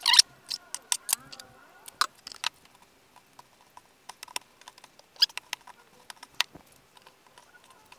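Oiled hands working soft, sticky pizza dough: irregular wet clicks, slaps and sticky taps as the pieces are lifted and folded. A metal dough scraper cuts through the dough and knocks on the worktop right at the start.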